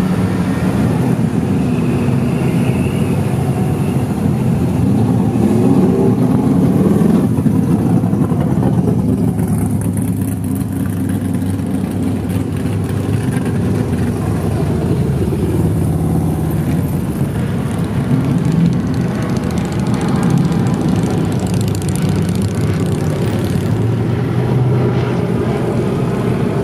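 Slow cruise traffic of classic and modern cars, pickups and a touring motorcycle driving past, a steady mix of engine and exhaust sound that swells and fades as each vehicle goes by.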